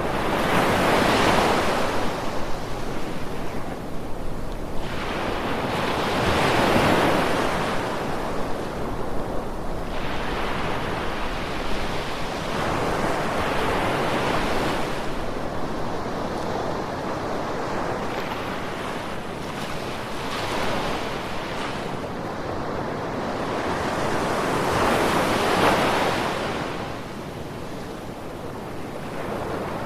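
Ocean waves breaking and washing up on a shore, each wave swelling to a rush and falling back, with a big surge every six seconds or so.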